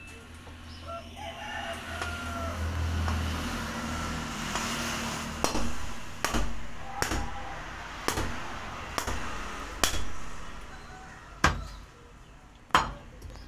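Heavy meat cleaver chopping through beef rib bone into a wooden chopping block: about eight sharp chops, roughly one a second, starting about five seconds in.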